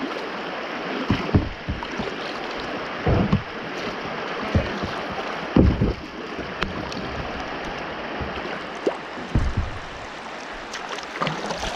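Shallow river water rushing and rippling against a kayak's hull, broken by a few low thumps and splashes, the strongest about three and five and a half seconds in.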